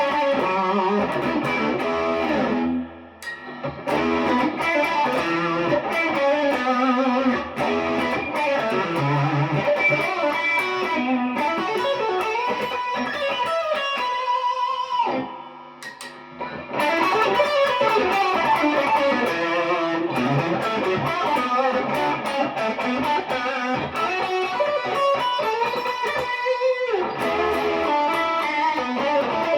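PRS Special Semi-Hollow electric guitar played clean, with fast single-note runs and chords and two short pauses, about three seconds in and about halfway through.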